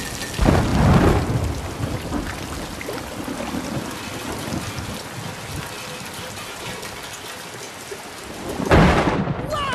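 Heavy rain falling steadily in a thunderstorm, with a thunderclap about half a second in and another near the end.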